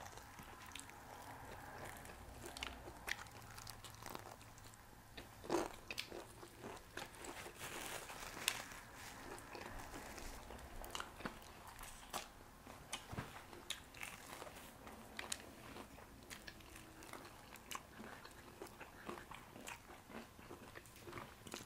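Close-up eating sounds of people biting into and chewing crispy fried chicken: irregular crisp crunches and wet chewing, with two louder bites about five and a half and eight and a half seconds in.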